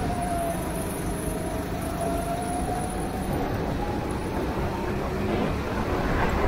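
Go-kart engine running at speed, its pitch dipping over the first second and a half, then climbing steadily as the kart accelerates, over a steady rushing noise.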